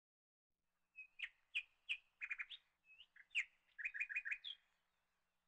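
A bird chirping: a string of short high chirps starting about a second in, ending in a quick run of four or five notes before stopping near the end.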